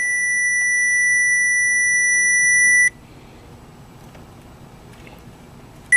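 Automotive short finder's receiver probe sounding a steady, high single-pitch tone while it picks up the tracer signal on the wire. The tone cuts off suddenly about three seconds in and comes back just before the end, as the signal drops out and is found again.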